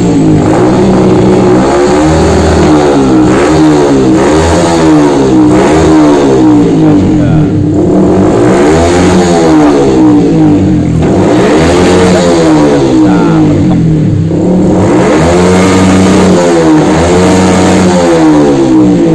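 Old Yamaha Vixion's 150 cc single-cylinder fuel-injected engine revved repeatedly through an aftermarket exhaust, its pitch rising and falling every second or two. It is running on a newly fitted BRT Juken 5 ECU at the ECU's default settings, which the owner says still need re-tuning before the bike is ridden.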